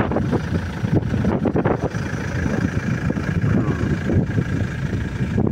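Wind buffeting the microphone in a fluctuating low rumble, with a faint steady hum behind it.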